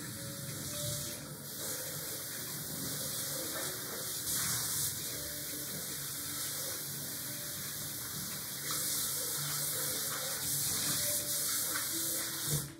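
Water running from a kitchen tap into a stainless steel sink as something is rinsed under it. The flow is steady and stops sharply near the end.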